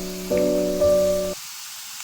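Background keyboard music, two chords struck, cutting off suddenly about one and a half seconds in. Under it and after it is a steady hiss of oil sizzling as chicken nuggets deep-fry.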